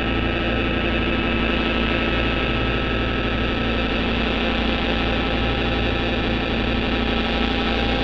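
Distorted drone/noise from DIY analog synthesizers (square-wave oscillator circuits) run through a Boss GT-8 multi-effects unit: a dense, steady buzz of several held tones over a low rumble and hiss.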